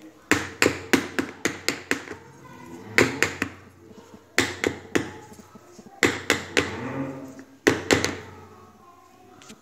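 Metal cake tin full of chocolate cake batter being tapped to settle the batter evenly. It gives quick runs of sharp knocks, several a second, with short pauses between the runs.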